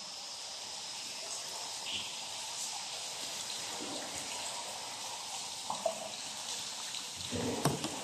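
Quiet water trickling and dripping on an underground river in a limestone cave, over a steady faint high hiss. A few soft knocks come near the end.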